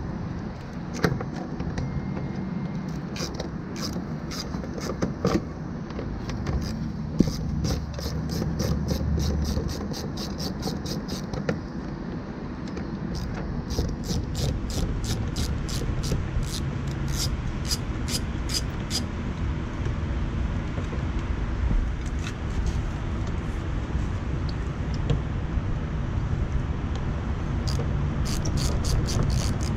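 Hand ratchet with a 10 mm socket clicking in runs of quick, even clicks as bolts are backed out of the underside of the front end, over a steady low background rumble.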